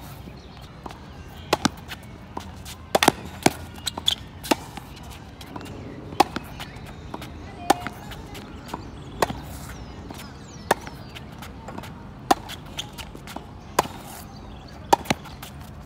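Tennis rally on a hard court: sharp pops of rackets striking the ball and the ball bouncing, the loudest coming about every one and a half seconds, with fainter knocks between.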